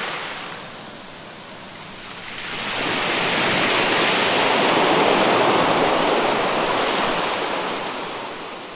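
Ocean surf washing onto a beach, a steady rush of noise that eases off about a second in, swells up again with an incoming wave a few seconds in, and slowly fades near the end.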